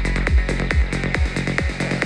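Electronic dance music with a steady kick drum, a little over two beats a second, each hit dropping in pitch, and ticking hi-hats. It is played through a SOUNDPEATS TrueAir2+ earbud and recorded from an artificial ear.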